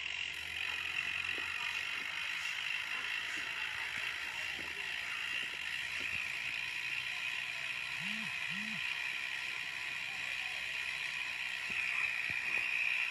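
Bicycle coasting along a paved road: a steady high whirring hiss from the freewheel ratchet and tyres, with a few faint clicks.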